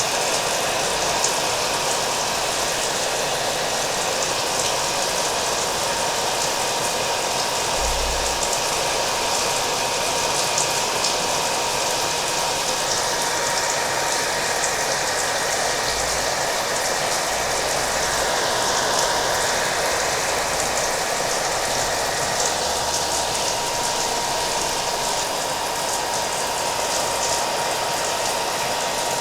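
Hair dryer running steadily, a continuous rushing of air with a thin constant whine, mixed with the patter of rain.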